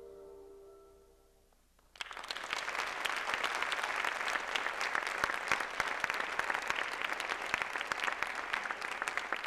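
The last sustained notes of the music fade out, and after a short lull an audience starts applauding suddenly about two seconds in, with many dense hand claps.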